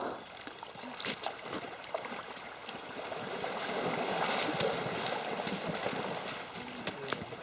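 Creek water rushing and splashing, with scattered knocks, swelling in the middle and easing off near the end. No engine is running: the motorcycle has stalled in the stream.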